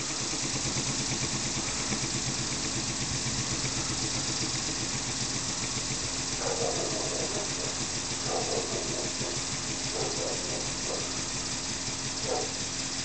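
Model elbow steam engine running steadily in reverse, a fast, even mechanical beat.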